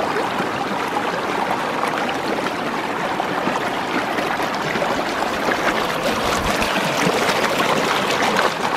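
River water flowing steadily and babbling.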